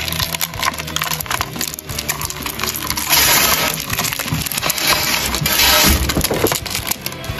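Two stag beetles grappling on bark: their claws and legs scratch and click on the wood. A louder, denser stretch of scraping comes from about three to six seconds in.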